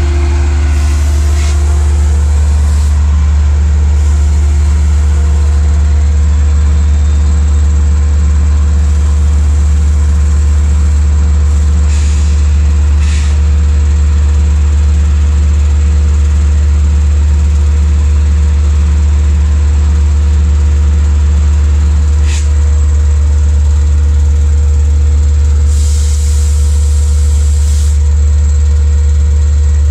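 Long Island Rail Road diesel locomotive running at a station platform: a heavy, steady low engine drone with several steady hum tones over it. There are short bursts of air hiss a little before halfway and about three-quarters of the way through, the engine's tones slide down in pitch after the second one, and a longer air hiss comes near the end.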